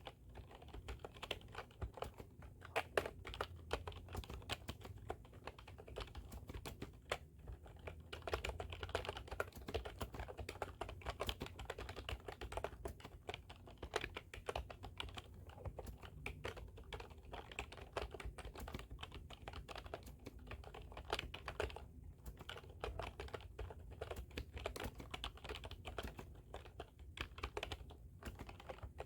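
Continuous fast typing on a computer keyboard: rapid, irregular key clicks with brief pauses between bursts.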